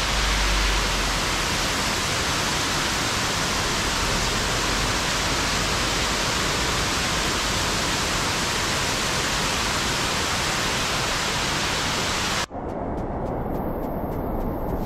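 Steady rush of a waterfall pouring down a rock face. About twelve and a half seconds in it cuts abruptly to a duller, softer rush of water.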